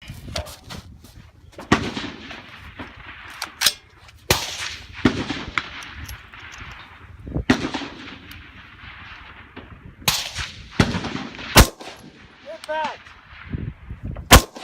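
Rifle shots at a precision rifle range, about half a dozen spread over several seconds, each followed by a long rolling echo.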